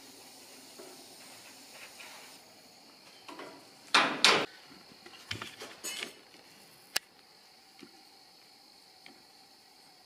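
Two loud, short blasts of air about four seconds in, then several smaller puffs, blowing loose sand out of a green-sand mold's cavity and gates; a sharp click follows near the end.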